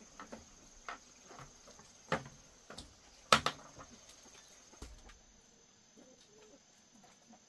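Crickets chirring in a steady high drone, with scattered clicks and knocks of chopsticks and bowls during a meal; the loudest click is about three seconds in.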